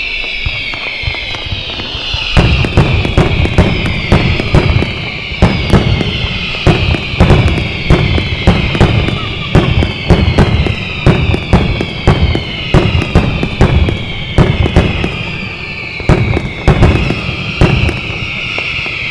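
Fireworks display: a continuous shrill whistling of many fireworks, the tones gliding down in pitch. From about two seconds in, a rapid barrage of sharp bangs comes several a second, easing off near the end.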